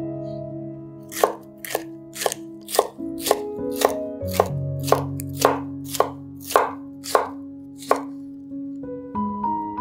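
A chef's knife slicing a red bell pepper into strips on a wooden cutting board: a steady run of about a dozen sharp chops, roughly two a second, starting about a second in and stopping near the end.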